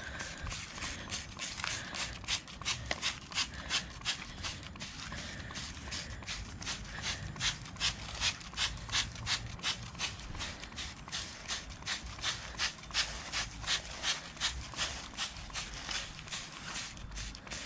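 Hand-held trigger spray bottle squirting soapy water onto the vinyl of an inflatable mattress. It gives quick, short sprays, two or three a second, over and over, wetting the seams to find an air leak by its bubbles.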